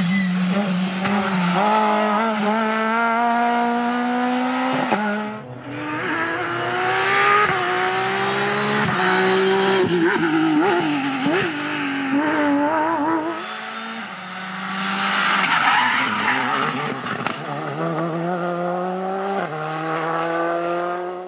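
Rally cars at full throttle on a special stage, engines revving up and dropping back with each gear change several times over, with a rough, noisy patch of tyre and engine noise part way through.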